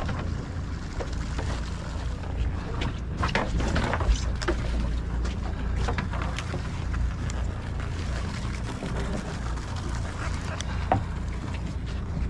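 Sportfishing boat's engine running with a steady low hum, with a few short clicks and knocks between about two and six seconds in and one more near the end.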